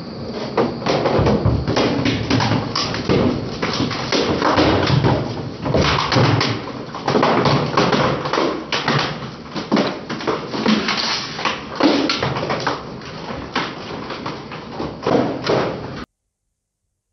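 Twin-shaft shredder's steel cutters crushing a blue plastic cup, with a dense run of irregular cracks, snaps and knocks as the plastic breaks up. The sound cuts off suddenly about 16 seconds in.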